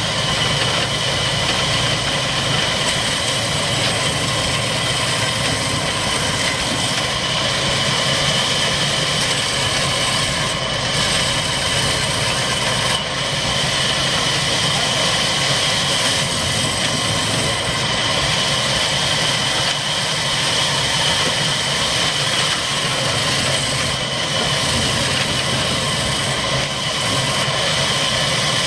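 Belt-driven band saw, powered by a Ruston Hornsby diesel engine, running steadily and cutting log sections. A constant mechanical drone with a steady high whine.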